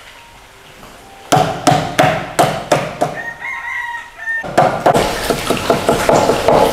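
A run of sharp chopping strikes on a board, about four a second, then a rooster crows once for about a second. After that comes a dense sizzle with quick clattering, like stirring in a hot pan.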